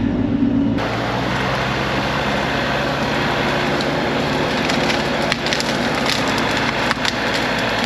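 Tree branches and brush cracking and splintering as a Bobcat E42 mini excavator pushes over and pulls out trees, over the steady hum of the excavator's engine. The crackling starts about a second in and keeps on, with a few sharper snaps past the middle.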